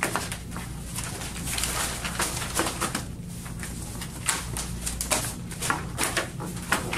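Sheets of paper rustling and shuffling as they are gathered up, with a sharp tap near the end as the stack is squared on a wooden desk. A low steady hum runs underneath.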